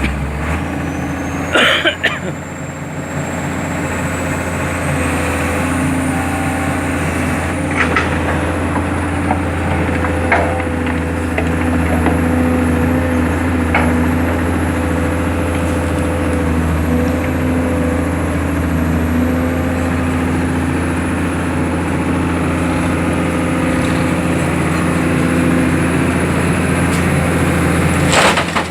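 Heavy diesel engine running steadily under load. It comes up in revs over the first few seconds, with a thin high whine that climbs and then holds, and a few short sharp knocks or clicks along the way.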